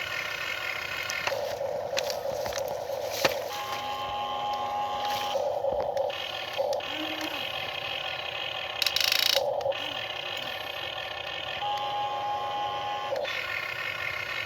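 An RC excavator's small electric motors and gears whining, starting and stopping every second or two and changing pitch as different movements are run. There is a sharp click about three seconds in and a short rattling burst about nine seconds in.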